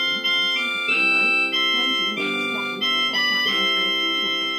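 Casio LK-100 electronic keyboard sounding a run of held notes and chords, the pitch changing every half second to a second.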